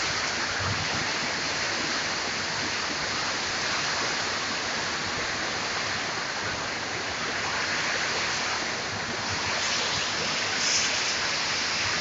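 Heavy rain pouring and strong wind blowing through palm trees and shrubs, making a steady, dense rushing noise.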